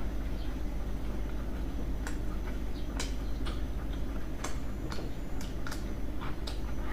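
Close-miked eating sounds: sharp, irregular mouth clicks and smacks while chewing, about nine over the last five seconds, over a steady low hum.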